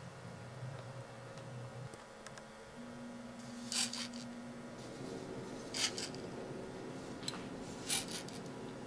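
Lego Mindstorms NXT servo motors whirring as a homemade copier runs, the motor tone shifting in pitch a few times. A short scratchy rasp comes about every two seconds.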